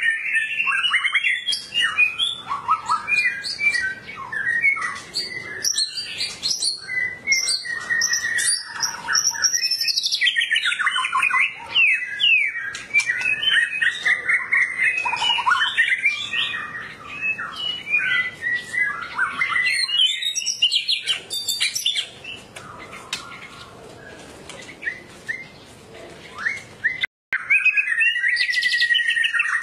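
White-rumped shama (Medan murai batu) in full, continuous song: a long run of varied loud whistles and rapid chattering phrases. It goes quieter for a few seconds about three-quarters of the way through, then resumes with a clear whistle that rises and falls.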